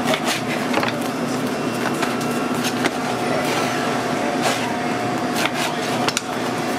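Serrated bread knife sawing through crusty seeded hoagie rolls, with scattered sharp knocks and scrapes of the knife and roll on the cutting board. Under it runs a steady hum and the chatter of a busy shop.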